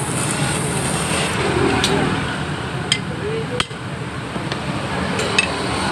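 Five sharp metal taps and clinks of hand tools, about a second apart, over a steady background of street traffic noise.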